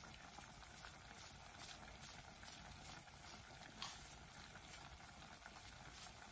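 Faint bubbling and popping of chitterlings cooking in a pot on the stove, with a small tick a little before four seconds in.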